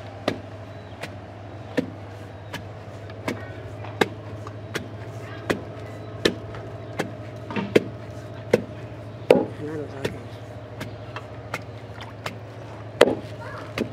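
Wooden pestle pounding fufu in a wooden mortar: steady, evenly spaced dull thuds, a little more than one a second.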